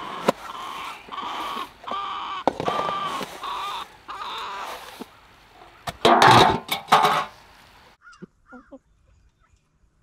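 Farm poultry calling with harsh, repeated squawks about twice a second for the first five seconds. About six seconds in there is a loud rush of feed pellets poured into a rubber feed pan, then a few soft short clucks from hens at the feed.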